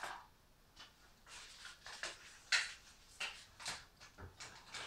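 Irregular light rustling, scraping and small knocks from fire-laying materials being handled at a wood-burning stove, a series of short sounds with the sharpest about halfway through.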